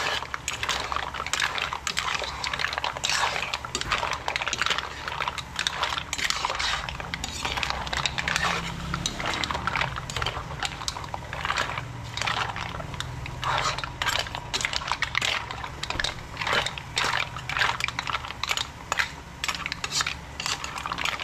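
A cooking utensil stirring shrimp, mussels and squid in a pan, with irregular scraping and clinking against the metal and the shells, over a steady low hum.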